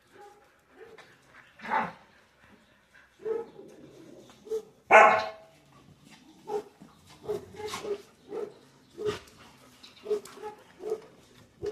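Several dogs barking, with one loud bark about five seconds in. After it come short pitched dog calls repeating about twice a second.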